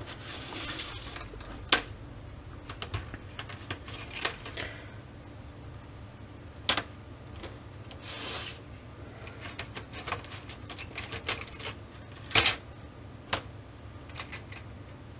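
TV LED backlight strips clicking and clattering lightly as they are handled, laid down and slid into rows on a bench, with a few sharper clicks and brief scrapes.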